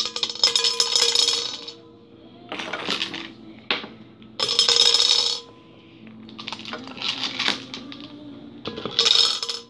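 Small shiny Christmas ornaments clinking and rattling against one another and a glass trifle bowl as they are handled and set in, in about six bursts of bright clinks.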